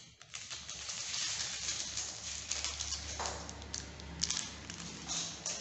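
Small clear plastic bag of screws and wall plugs crinkling and rustling as it is handled, with small clicks of the parts shifting inside.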